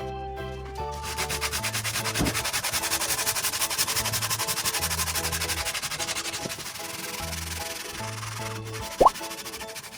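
Rapid back-and-forth sanding strokes on a wooden guitar neck, about five strokes a second, easing off after about six seconds. A short, loud squeak rising in pitch comes near the end.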